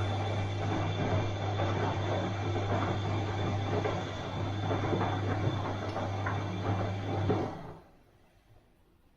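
Bosch washing machine running, a steady low hum under a busy rattling churn, which cuts off about three-quarters of the way through, leaving near silence.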